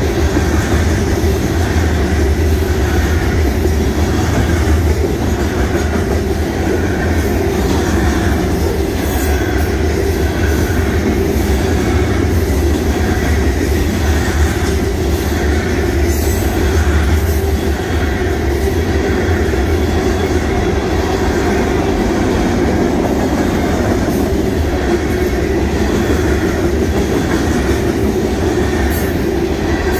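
Freight train cars, covered hoppers and then tank cars, rolling steadily past: a continuous heavy rumble of steel wheels on the rails with a rhythmic clickety-clack.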